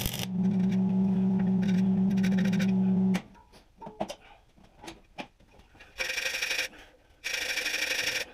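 Welding arc buzzing steadily as a bead is laid on steel, cutting off about three seconds in. After a few faint clicks, two scratchy bursts of scraping on the metal follow near the end.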